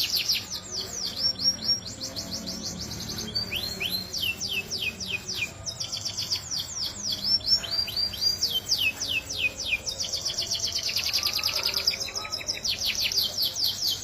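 Domestic canary singing a continuous song of fast trills and quick runs of downward-sweeping whistled notes.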